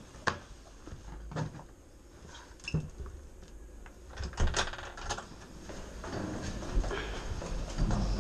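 Indoor handling noises: separate knocks and clicks as a Onewheel electric board is picked up and carried through a doorway, growing into busier rustling and knocking near the end.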